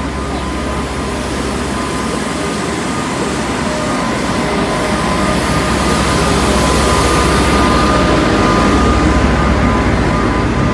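Street tram passing close by, a steady rumbling run with a faint high hum that grows louder toward the middle and stays up.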